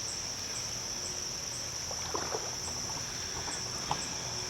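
Steady high-pitched chorus of insects in late-summer woods, with a fainter chirp repeating about twice a second. A few soft clicks and rustles come in around the middle.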